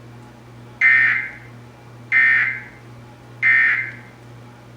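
Emergency Alert System end-of-message signal: three short, raspy bursts of SAME digital data tones, about a second and a quarter apart, each with a short echoing tail, marking the end of the alert message.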